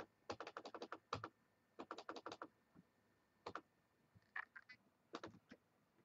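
Computer keyboard keys being typed in short bursts of quick clicks, with pauses between the runs.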